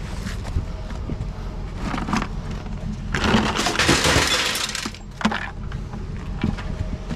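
Scrap being handled and broken apart: a few short knocks, then a loud breaking, rattling noise lasting about two seconds starting about three seconds in, over a low steady rumble.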